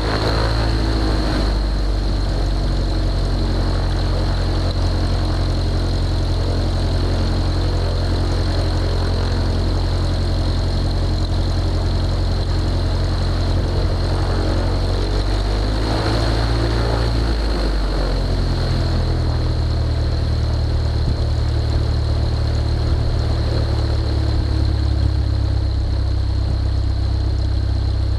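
Husky A-1C light aircraft's piston engine and propeller running at idle on the ground, a steady drone. A little past halfway the engine note dips briefly and then comes back up.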